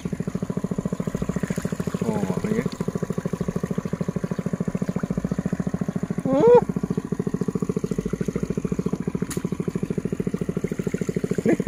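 A small engine running steadily with a fast, even beat. Two or three short voice sounds come over it.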